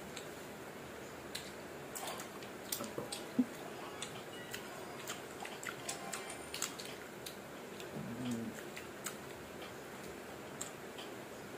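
Quiet chewing and small wet mouth clicks of someone eating slices of sour mango, with a brief low hum about eight seconds in.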